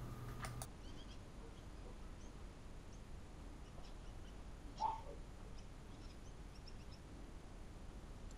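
Quiet background with scattered faint bird chirps, and a single light click about five seconds in.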